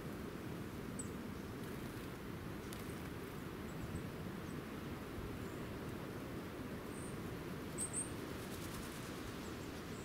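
A few short, very high, thin chirps from small songbirds, the loudest pair about eight seconds in, over a steady low background rumble.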